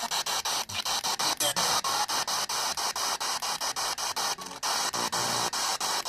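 Electronic static hiss from a broadcast receiver, cut by short dropouts about six times a second.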